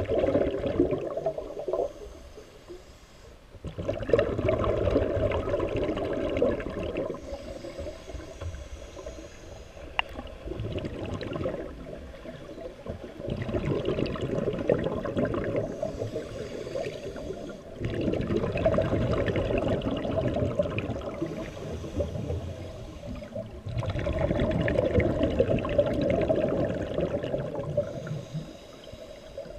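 Scuba diver breathing through a regulator underwater, in repeating cycles: a quieter hissing inhale, then a long bubbling rush of exhaled air. About five breaths follow one another every five or six seconds.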